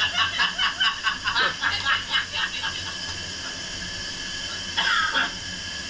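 People laughing inside a hyperbaric chamber: a run of quick giggles for about two and a half seconds, then a steady hiss, and one short high laugh near the end.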